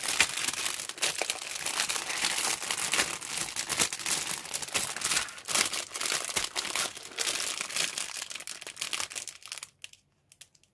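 Clear plastic bag crinkling and crackling as the plastic kit sprues inside it are handled and turned over, a dense run of small crackles that stops about a second before the end.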